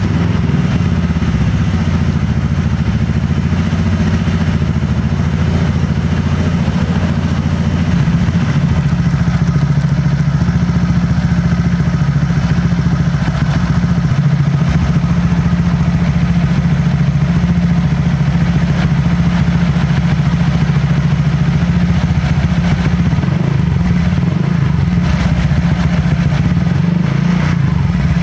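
Honda PCX 150's single-cylinder engine idling steadily through a TZM Project STD SS Pro stainless aftermarket exhaust with its dB killer removed, giving a deep, mellow bass note.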